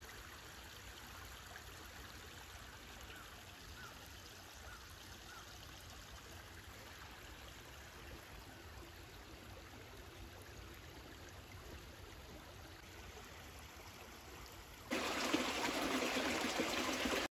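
Shallow creek running over stones, a faint steady trickle; about fifteen seconds in it cuts suddenly to much louder, closer running water.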